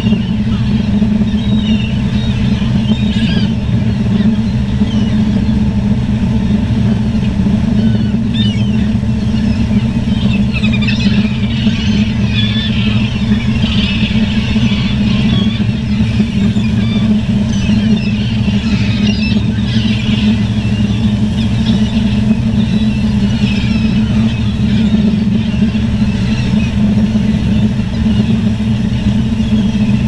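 A steady engine drone runs throughout, with many gulls calling over it, busiest in the middle.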